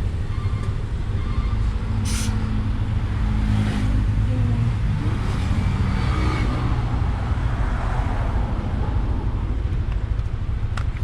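Bus running with a steady low rumble. About two seconds in there is a short hiss of air.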